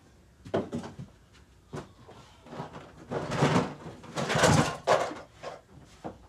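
Scattered knocks and rustling from a person handling things and moving about, with a longer, louder rustle about three to five seconds in.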